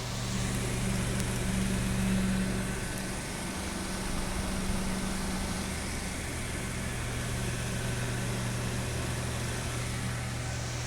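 Mondial Super Turbo VTX 40 cm eight-blade electric fan running steadily: a low motor hum under a rush of moving air.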